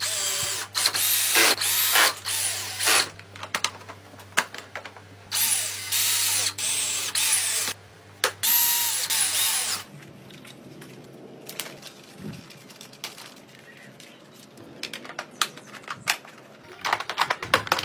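Power drill running in several bursts of a few seconds each, then scattered clicks and knocks of hand work.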